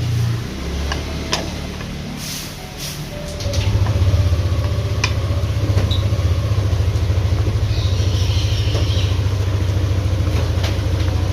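A low, steady motor-like rumble with a fast even pulse, which comes in strongly a few seconds in and holds, with a few light clicks before it.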